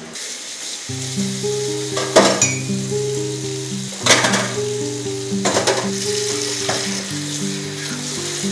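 Tap water running into a stainless steel sink as dishes are washed, with three louder clatters of dishes about two, four and five and a half seconds in. Background music of held low notes plays under it.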